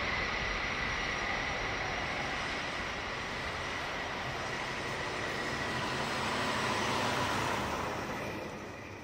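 Lockheed C-5 Galaxy's four turbofan engines at takeoff thrust: a screaming steady high whine over a broad jet rumble as the jet rolls, lifts off and climbs out. The sound fades away over the last second or so.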